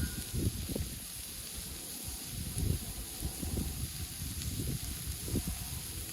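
Ham frying in a pan, a steady sizzle, with irregular low rumbles and knocks underneath.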